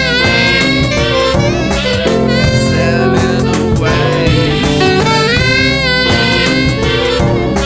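Band music with no singing: an instrumental passage of the song, a lead line with sliding, bending notes over a steady drum beat.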